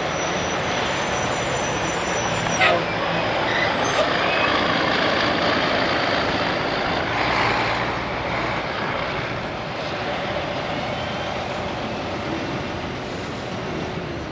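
Heavy trucks passing on a highway: a tanker semi-truck and dump trucks driving by with cars, a steady rush of engine and tyre noise. A sharp knock comes about two and a half seconds in.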